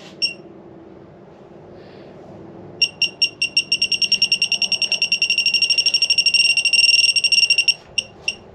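Handheld pinpointer metal detector beeping: rapid high-pitched pulses starting about three seconds in, quickening into an almost continuous tone, then cutting off near the end. The strong signal is false, which the operator puts down to the probe passing over the steel bench vice.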